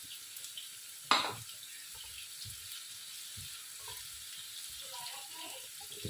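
Chopped onions sizzling steadily in oil on a flat tawa, stirred with a slotted spatula, with one sharp clack about a second in.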